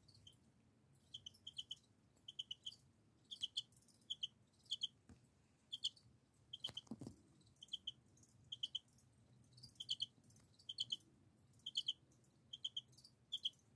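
Crickets chirping, the males rubbing their wings together: short high chirps of two or three quick pulses, repeated about every half second to a second. A soft knock about seven seconds in.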